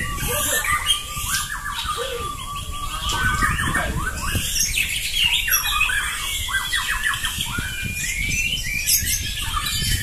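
Several caged white-rumped shamas (murai batu) singing against each other at once: dense, overlapping loud whistles, sweeping glides and rapid-fire repeated phrases, the aggressive 'tembakan' song of shamas duelling in a contest.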